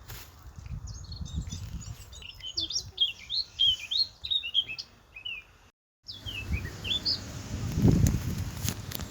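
Small birds chirping rapidly in quick, short calls, with low rumbling thuds underneath that are loudest near the end. The sound breaks off completely for a moment about six seconds in.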